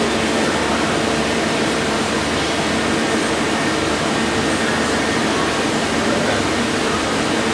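Steady machinery hum over an even hiss, with a few constant tones and no change in speed or level.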